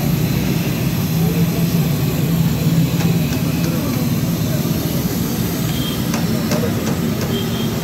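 Steady noise of a deep-fryer stall: the gas burner under the steel oil pans running and chips sizzling in hot oil. About six seconds in come a few metal clinks as the wire frying basket is lifted and shaken.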